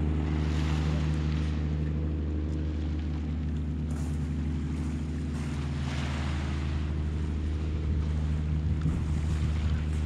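An engine drones at one steady, unchanging pitch, with wind and breaking waves rushing over it in swells every few seconds.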